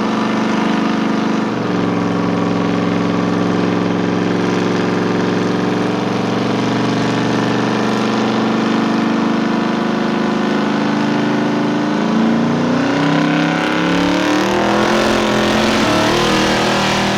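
Car engine running steadily, its pitch stepping down once about a second and a half in, then rising and falling repeatedly near the end as the revs change.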